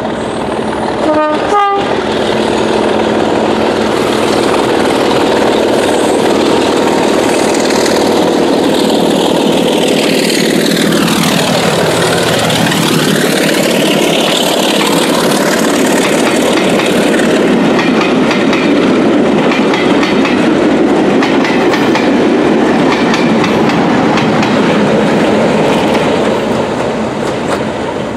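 Preserved British Rail diesel locomotive sounding a short two-note horn, then passing close by with a loud, steady engine and rail noise that is loudest around the middle. Its wheels are clicking over the rail joints as it draws away.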